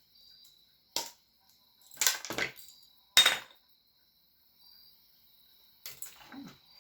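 A few sharp clicks and clatters of small hard objects being handled and set down, the loudest about three seconds in.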